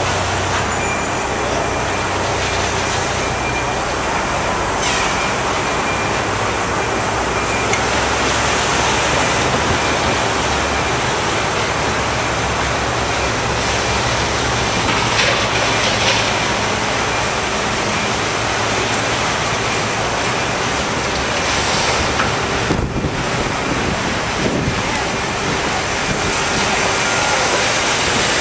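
Loud, steady din of city traffic and subway construction work.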